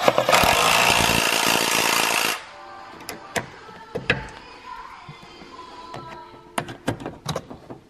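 A loud rushing transition sound effect for about two seconds. It is followed by scattered sharp clicks and snaps, a few at first and then a quick cluster near the end, as plastic push-pin clips on a car's cowl vent panel are handled and pressed into place.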